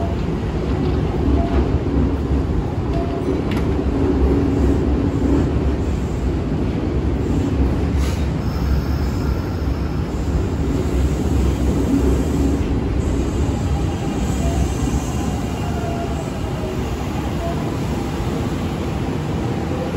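Kintetsu 1230-series and 8000-series electric train standing at the platform and then pulling away, with a steady low rumble from the train throughout. A short sharp sound comes about eight seconds in, and faint motor tones come in during the second half as it gathers speed.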